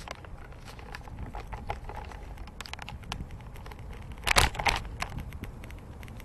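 Bicycle riding over pavement, heard from a handlebar-mounted camera: a steady low rumble of tyres and wind with scattered irregular clicks and rattles, and one loud rustling knock a little past four seconds in.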